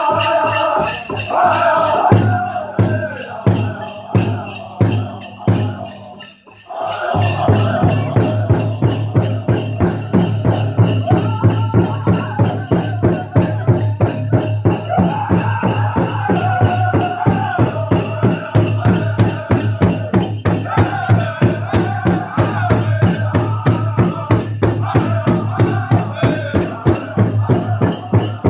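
Powwow drum group singing a Chicken dance song over the steady beat of a big drum, with dancers' bells rattling. A couple of seconds in the singing drops away, leaving spaced drum strokes that stop briefly about six seconds in; then the drum and the singing start up again.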